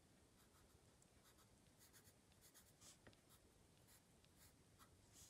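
Graphite pencil scratching faintly on card in short, irregular strokes, shading in small windows.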